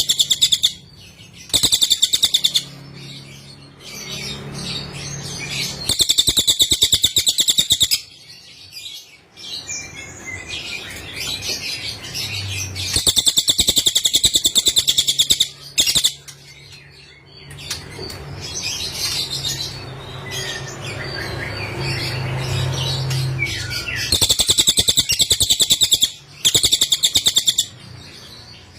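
A cililin bird singing: loud, very rapid high trills lasting a second or two, repeated about half a dozen times, with softer, varied twittering between them.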